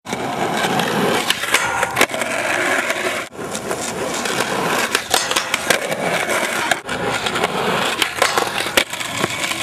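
Skateboard wheels rolling on concrete, with several sharp clacks of the deck popping and landing. The sound breaks off abruptly twice.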